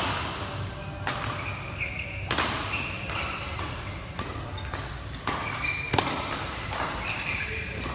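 Badminton rally: sharp racket-on-shuttlecock hits roughly every second, with short high squeaks from players' shoes on the court mat between them.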